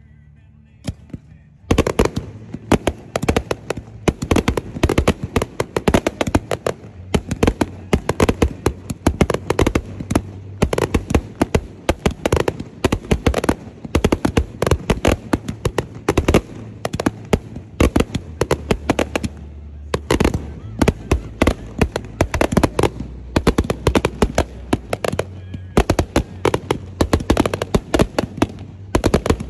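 Fireworks going off: a dense, irregular string of sharp cracks and pops, many a second, starting about two seconds in and keeping on without a break.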